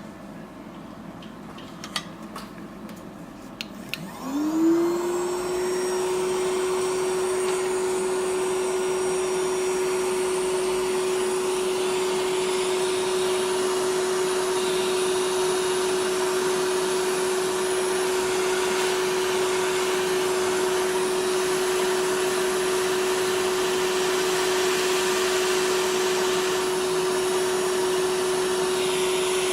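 A few clicks, then a hot air rework station's blower starts about four seconds in. Its whine rises quickly to a steady pitch and it runs with a steady rush of air, heating the new HDMI port to reflow it onto the solder-tinned pads on the Xbox One S board.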